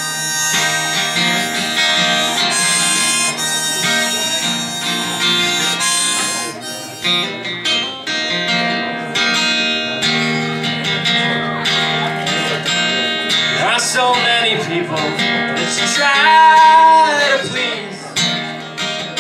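Live band playing an instrumental break between sung verses: strummed acoustic guitar and drums under a sustained lead melody line whose notes bend up and down near the end.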